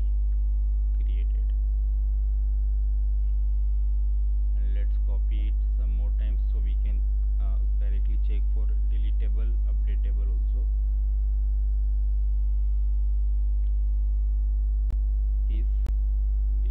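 Steady electrical mains hum with a stack of overtones. Two sharp clicks come near the end.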